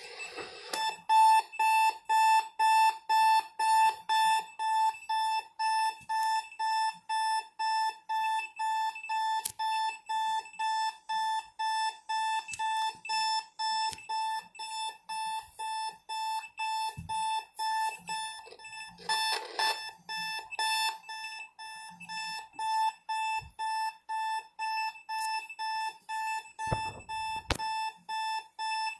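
Electronic alarm clock beeping: a single high-pitched beep repeating about twice a second, starting about a second in and going on steadily.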